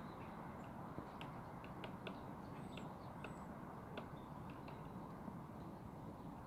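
Woodpecker pecking at wood while foraging: faint, irregular single taps spaced unevenly, not a steady drum roll, with a couple of brief high chirps around the middle.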